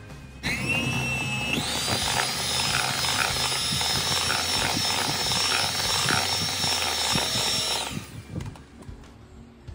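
Black+Decker electric hand mixer starting up and beating an egg into cream cheese batter. Its motor whine rises and steps up to a higher speed after about a second, holds steady, then stops a little before the end.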